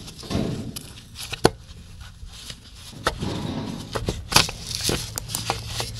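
An Arctic Cat Alterra ATV starter motor being wiggled and pulled straight back out of its bore in the engine case by a gloved hand: scattered metal clicks and knocks with scraping and rustling between them.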